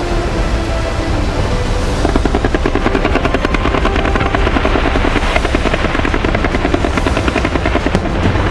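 Fireworks going off: a steady low rumble, then from about two seconds in a fast, continuous crackle of pops, with a few louder single bangs standing out.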